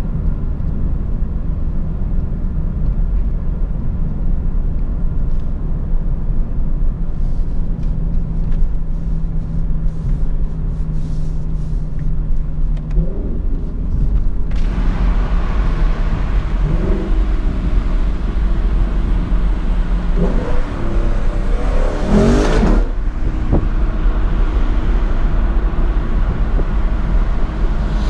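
Lexus LC 500's V8 engine running under way, heard from the driver's seat along with road and wind noise. It holds a steady note at first. From about halfway the sound grows fuller, and the engine note rises and falls a few times as the car speeds up and changes gear.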